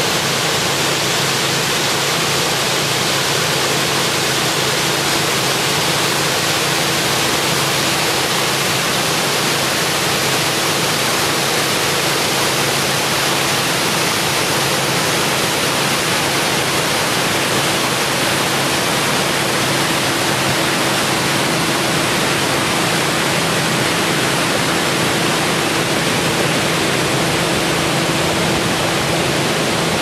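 Steady rush of water over a waterfall's rock cascades, an even hiss that does not change.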